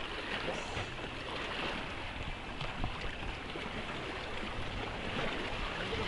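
Sea water sloshing and lapping close to the microphone, a steady rushing noise with no separate splashes standing out.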